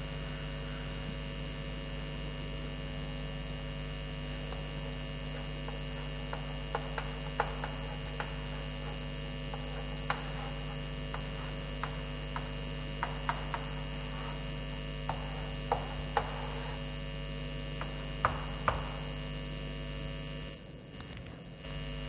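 Steady electrical mains hum, with sharp taps and clicks of chalk striking the blackboard as words are written, from about six seconds in until near the end.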